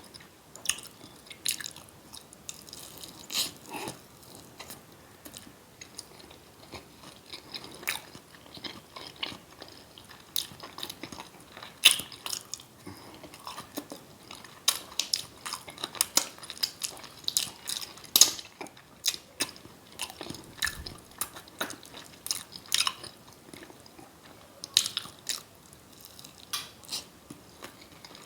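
Close-miked eating of crab cake with tartar sauce: wet smacking and chewing with irregular sharp mouth clicks throughout.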